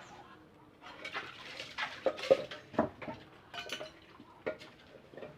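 Irregular clattering and clinking against a bird cage and its feed cup, loudest a little past two seconds in.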